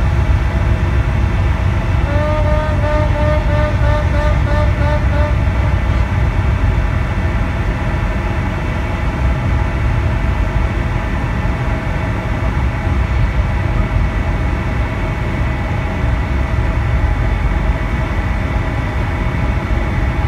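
Steady low mechanical rumble, like engine or traffic noise, with a quick run of about ten short, wavering pitched notes a couple of seconds in.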